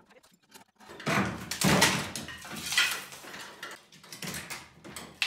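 Old wooden ceiling boards scraping and knocking against the roof rafters as they are pulled loose by hand, in several loud bouts starting about a second in.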